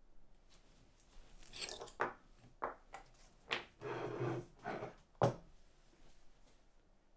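Handling noises on a workbench: a handful of knocks and rubbing or sliding sounds, the sharpest knock about five seconds in.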